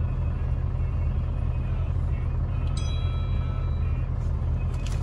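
Heavy diesel engine idling with a steady deep rumble. About three seconds in, a brief high-pitched squeal sounds for around a second, and a couple of short sharp hisses come near the end.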